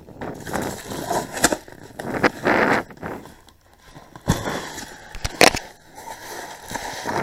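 Cardboard boxes and packaged fireworks being handled and unpacked: rustling, scraping and small clicks, with two sharp knocks about four and five and a half seconds in.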